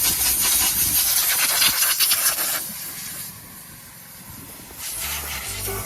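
Loud hissing rush of air or spray, which eases off about three seconds in.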